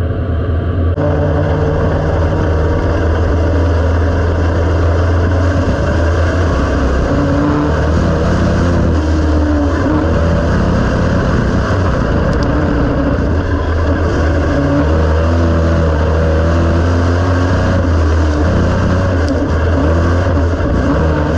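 Dirt-track race car's engine running at fairly steady, moderate revs, heard loud from inside the cockpit as the car rolls around the dirt oval.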